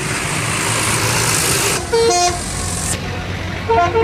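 A bus's telolet horn, a multi-tone musical horn, playing a quick run of short notes that step up and down in pitch about two seconds in, and starting another run near the end. Before it, a loud hissing noise that stops about two seconds in, over a low engine hum.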